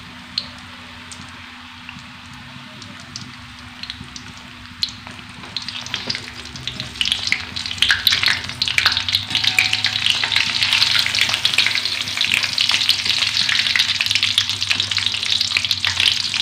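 Small salted fish (ikan asin) frying in oil in a wok. At first there is sparse crackling, then from about six seconds in a dense, louder sizzle and crackle as a slotted metal spatula stirs and turns the fish.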